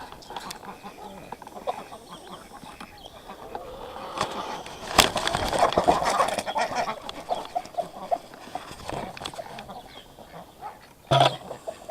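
A flock of chickens clucking in short, busy calls, loudest in the middle, with a sharp knock about five seconds in and another short loud sound near the end.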